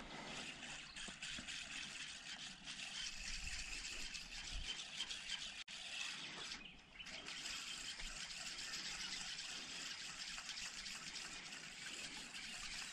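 Water trickling and flowing steadily, a river current running close by.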